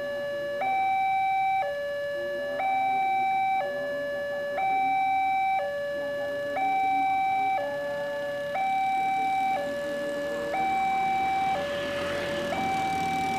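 Level-crossing warning alarm sounding its electronic two-tone signal, alternating between a higher and a lower tone, each held about a second. Road traffic noise grows under it near the end.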